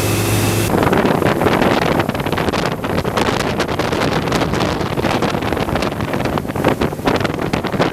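Heavy wind buffeting the microphone on a moving boat: a dense rushing noise with irregular gusty thumps. A steady low engine hum is heard at the very start and drops away under it within the first second.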